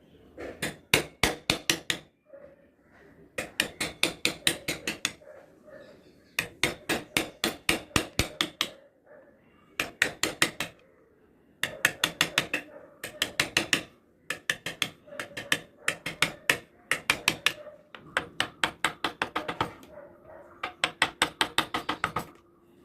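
A mallet tapping a carving chisel into wood in quick runs of sharp knocks, about six a second, each run lasting one to two seconds with short pauses between.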